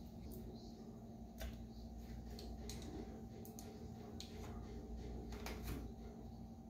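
Faint scattered clicks and scrapes of a utensil scooping margarine out of a plastic tub, over a steady low hum.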